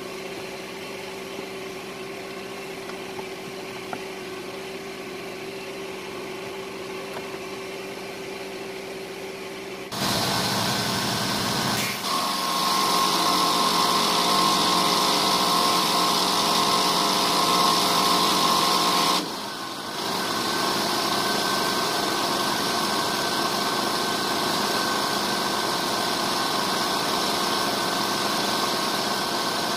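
Pressure washer running steadily. About ten seconds in it gets louder, with a hiss of spray and a higher whine. The noise drops out for a moment about two-thirds of the way through, then picks up again.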